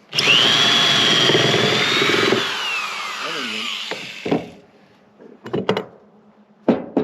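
Electric drill boring into wood. The motor starts abruptly, runs under load for about two seconds, then winds down with a falling whine. A few short knocks follow near the end.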